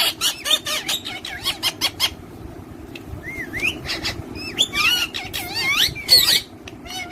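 Parrots chirping and whistling in short, sharp calls that bend up and down in pitch. There is a quick run of them in the first two seconds, a brief lull, then more rising and falling whistles from about three to six seconds in.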